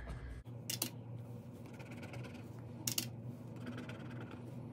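Quiet handling of paper and a pen on a desk: a few light clicks and soft scratching over a faint steady hum.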